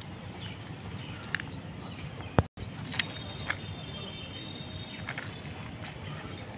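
Outdoor background noise with a few light clicks and taps from a plastic toy dump truck being handled on loose dirt. The sound breaks off for a moment about two and a half seconds in.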